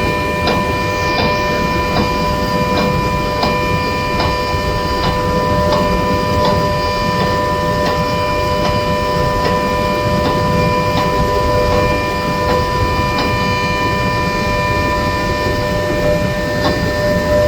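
Dam gate hoist machinery running: a steady machine whine made of several held tones, with faint regular ticks about twice a second, over a low rushing noise.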